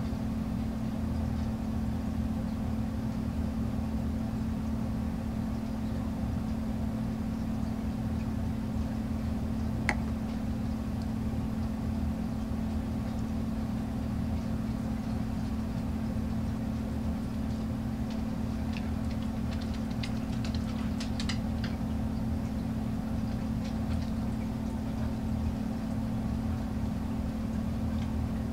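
A steady low machine hum runs throughout. There is a single sharp click about ten seconds in and a few faint light taps around twenty seconds in.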